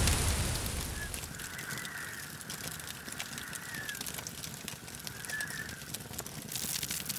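Synthesized explosion sound effect dying away: its noisy rumble fades over the first second or two, leaving faint crackling like a blazing fire. Two short faint calls come through, one about a second in and another about five seconds in.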